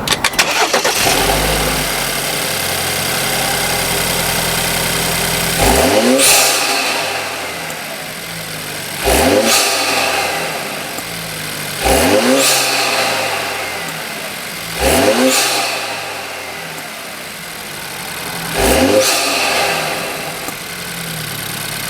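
BMW F31 wagon's turbocharged engine starting and settling to idle, then revved five times, each blip rising quickly and falling back to idle. The intake and turbo sound comes through a freshly fitted CTS Turbo open intake.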